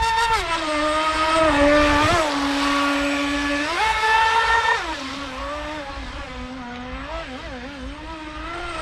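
Homemade RC speedboat's electric motor whining as the boat runs across the water, its pitch rising and falling several times with the throttle.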